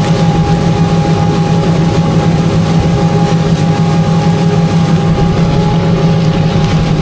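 Tractor engine running steadily under load while pulling an in-line ripper through the ground: a constant low drone with a thin steady whine above it.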